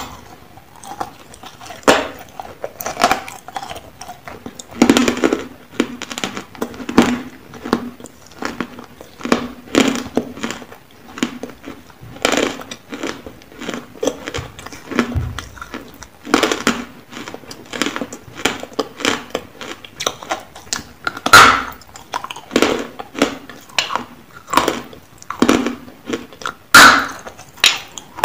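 Biting and chewing a lump of dry white chalky clay close to the microphone: irregular crisp crunches and crackles, with a few much louder bites spread through, the loudest near the middle and near the end.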